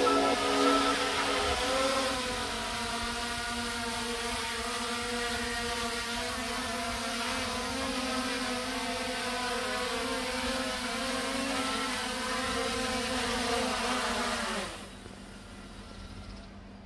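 DJI Mavic Air 2 quadcopter's propellers whining in a steady multi-tone hum with hiss as it comes down to land. The motors spin down with a falling pitch and stop near the end.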